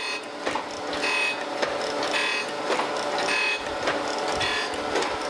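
Landis surface grinder running with a steady motor and wheel whine. The wheel grinds the straight-edge castings in a short burst of grinding noise about once a second as the reciprocating table carries them under it, taking a roughing cut.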